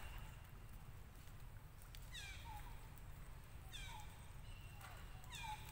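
Faint, high-pitched, short falling squeaks from an animal, in three bursts about a second and a half apart, over a low steady rumble.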